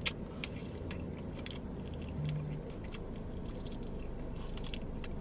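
A person chewing and biting into a saucy chicken wing: soft wet chewing with scattered small mouth clicks, and one sharp click just after the start, over a steady low hum.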